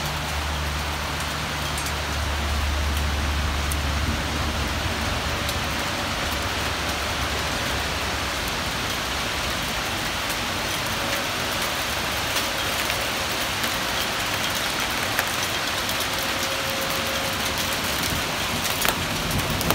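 Steady rain mixed with small hail: an even hiss, with scattered sharp ticks of pellets striking a metal balcony railing that come more often in the second half. A low rumble sits under the first few seconds.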